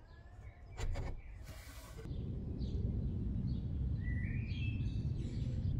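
Outdoor ambience: small birds chirping a few times, one call rising, over a steady low rumble. A couple of sharp knocks sound about a second in.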